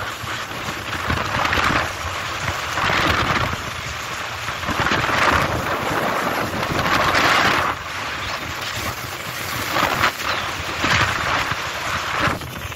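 Wind buffeting the phone's microphone and water rushing past the hull of a motorboat under way, as a steady loud rush that swells every second or two as the boat meets the chop.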